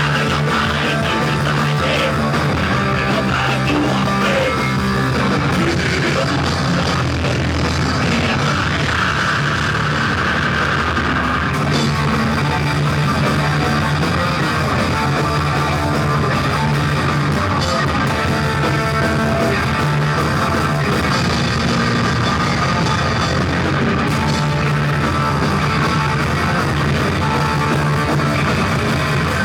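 Rock band playing live, with loud distorted electric guitars, bass and drums, heard as a rough, muddy audience recording.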